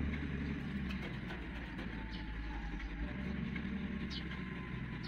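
Diesel engines of heavy equipment, a mobile crane and a Hitachi excavator, running steadily as a low, even rumble.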